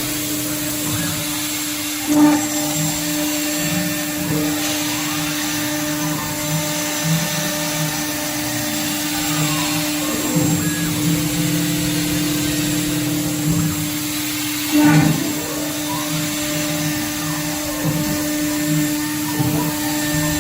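CNC router spindle cutting aluminium: a steady whine over a constant hum, with two short louder surges, about two seconds in and about fifteen seconds in.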